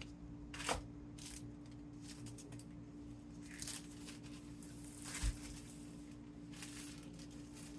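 Faint, scattered rustles and soft handling noises as phyllo dough is worked by hand, over a steady low hum.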